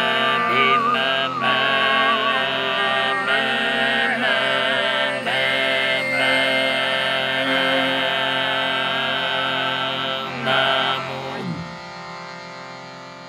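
Overtone singing: voices hold a drone chord while a whistle-like overtone melody wavers high above it. About eleven and a half seconds in, the voices slide down and the sound drops to a quieter held drone.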